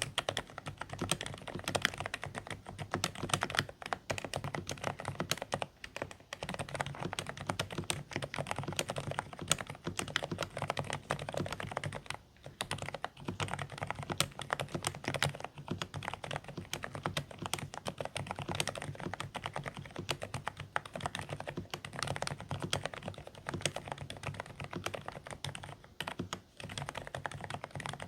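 Continuous fast typing on a Dareu A104 Pro mechanical keyboard with silent beige switches: quiet, somewhat muffled keystrokes in a dense stream, with brief pauses about six, twelve and twenty-six seconds in.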